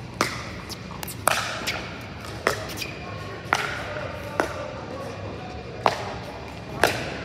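Pickleball rally: paddles striking the hollow plastic ball, about seven sharp pops roughly a second apart, each ringing briefly in a large hall.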